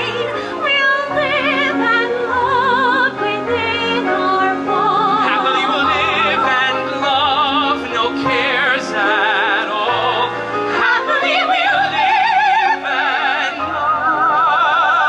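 A woman and a man singing a duet in a musical-theatre style with wide vibrato, over an instrumental accompaniment with a steady bass line. Near the end they hold a long note together.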